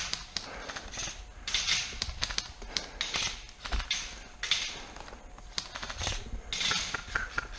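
Dry branches, twigs and grass rustling and crackling in repeated bursts about every second and a half as someone moves through brush, with scattered sharp clicks.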